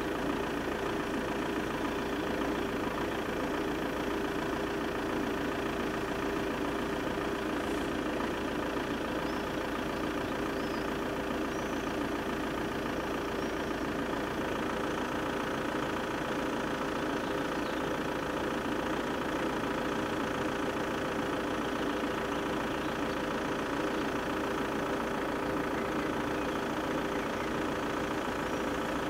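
Level crossing's electric warning bells ringing steadily and without a break while the barriers are down, signalling an approaching train.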